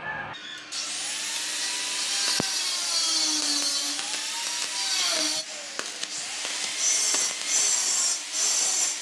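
Stick-welding arc at about 60 amps on a stainless steel handrail tube joint: a steady hiss that starts just under a second in, breaks off a little after five seconds, then comes back in several short runs.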